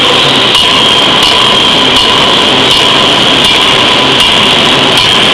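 Loud, steady machine noise of a power forging hammer running in a forge shop, with a constant high hiss and faint regular knocks about every 0.7 seconds.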